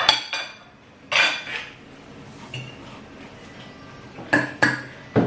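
Spoon clinking against a plate while eating fried rice: a sharp clink at the start, another about a second in, and three more close together near the end.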